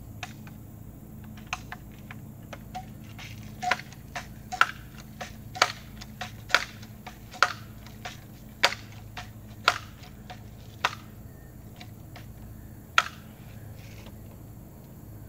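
A multi-pump pellet rifle being pumped: a run of about ten sharp mechanical clacks, roughly one a second, then a single clack about two seconds after the run.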